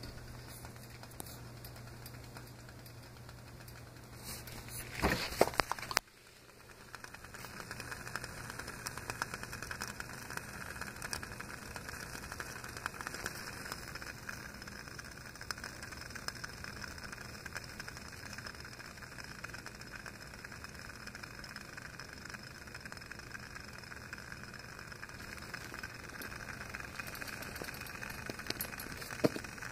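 Beer-can alcohol stove burning with a ring of blue jet flames, giving a steady soft hiss with light crackling. About five seconds in there is a loud, brief knock or clatter, and the sound cuts off before the hiss resumes.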